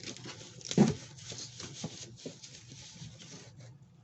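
A knock about a second in, followed by scattered light clicks and rustling, like objects being handled and set down on a work surface.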